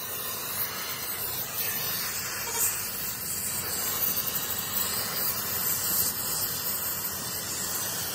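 Oxy-fuel cutting torch hissing steadily, its flame working on a glowing steel part and throwing sparks.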